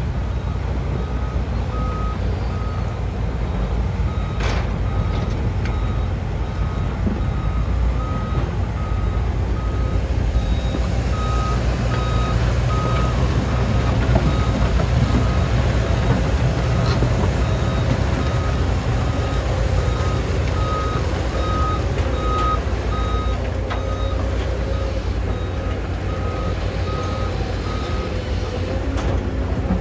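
Heavy diesel earthmoving machinery running steadily, with a backup alarm beeping a little more than once a second and a single sharp knock about four seconds in.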